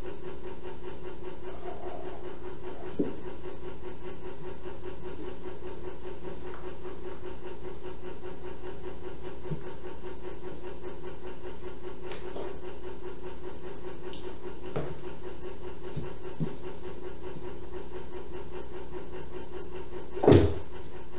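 Steady mechanical hum over a low hiss, with a few faint clicks and one loud, short thump near the end.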